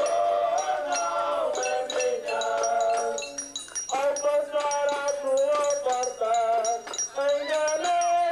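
Music with a steady beat: a melody that slides between notes over short, high chiming ticks repeating a few times a second.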